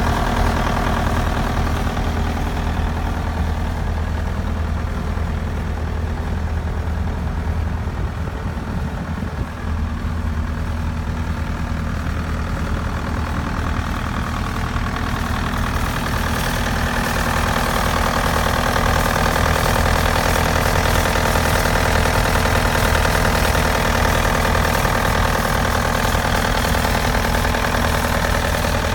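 Bobcat S185 skid steer's Kubota diesel engine running steadily. From about halfway through it grows a little louder, with a stronger higher-pitched whine.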